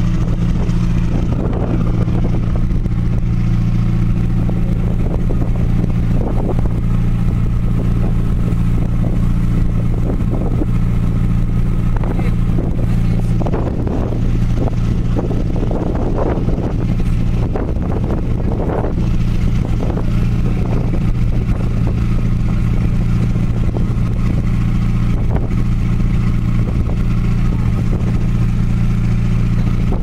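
A ship's engine drones steadily with a deep, even hum. Shorter sounds come and go over it in the middle stretch.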